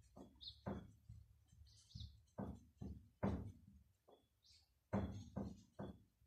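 A pen writing on a sheet of paper on a wooden table: about a dozen short, irregular taps and scratches as the letters are formed.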